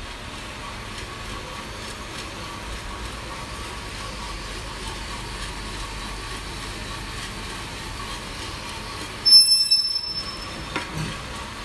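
Vina Roaster drum coffee roaster running: a steady mechanical whir of its motors and fan. About nine seconds in, a brief loud high-pitched squeal.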